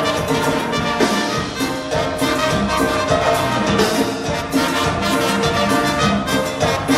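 Live dance band playing, with a brass section of trumpets over percussion and keyboard and a steady beat.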